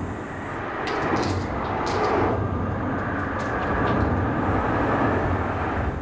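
Steady vehicle rumble with a low hum, heard from under a concrete bridge, with a few short clicks about two seconds in.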